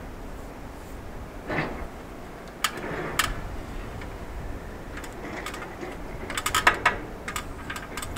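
Aluminium ladder knocking and clanking against a steel shipping container as someone climbs it: two sharp knocks around the middle, then a quick run of clicks and clanks near the end.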